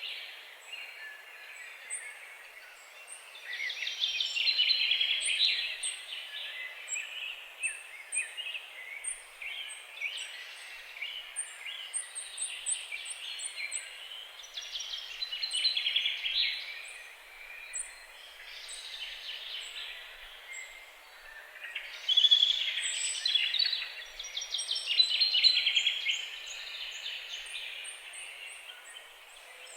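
Forest ambience: many birds singing and calling at once, with bursts of chirping and trills that swell and fade, over a short, thin, very high note repeating again and again.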